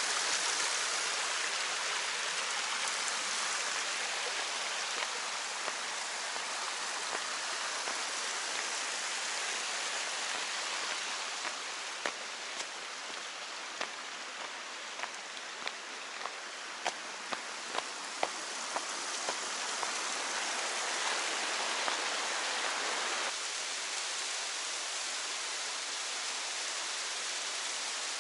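Steady rush of a small mountain creek cascading over rocks. In the middle, footsteps on a dry leaf-covered dirt trail sound over it, about two steps a second for several seconds.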